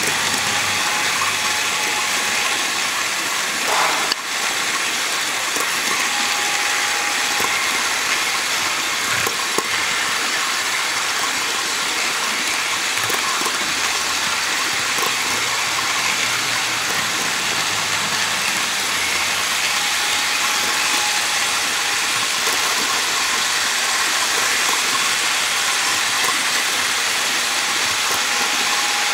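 HO scale covered hopper cars on metal wheelsets rolling along model track: a steady rolling rattle full of small clicks, with a sharper knock about four seconds in.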